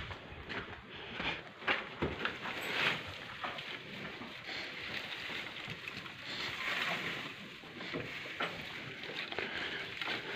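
Hay rustling and crackling as it is handled, with irregular scattered clicks.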